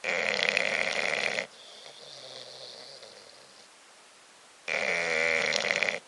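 Bulldog snoring in its sleep: two loud snores, one right at the start and one near the end, each about a second and a half long, with a much quieter stretch between.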